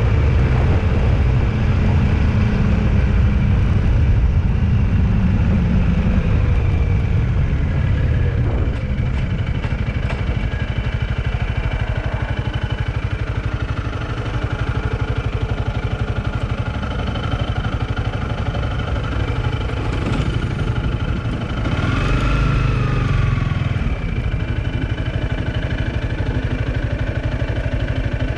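A vehicle engine running steadily with road noise, a little louder in the first few seconds, and a brief louder swell with a rise and fall in pitch about two-thirds of the way through.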